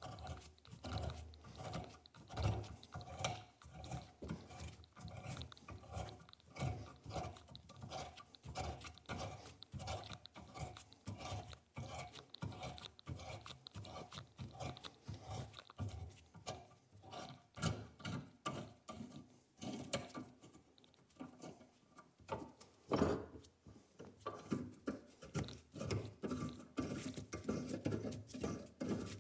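An 8.5 mm reamer being worked by hand through a steel Volvo 142 door-hinge bolt hole: an irregular run of scraping, clicking strokes as the metal is cut, with one louder knock about 23 seconds in.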